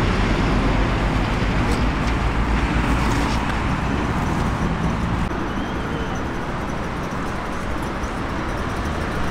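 Steady rumble of road traffic and vehicle engines, with a few faint clicks.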